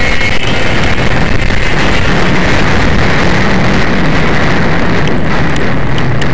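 Formula 500 racing snowmobile's two-stroke engine running at racing speed, heard from the sled's own hood, loud and steady, mixed with heavy wind rushing over the microphone.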